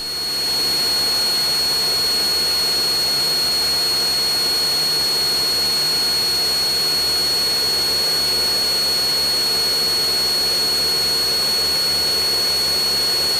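Steady in-flight cabin noise of a Cessna 172 Skyhawk: engine and propeller drone heard as an even hiss with a thin, constant high whine, fading in over the first half second.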